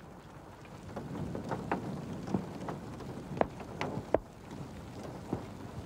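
Small ice pellets from fog seeding falling and landing on gravelly ground: a soft steady hiss with scattered light ticks at irregular intervals.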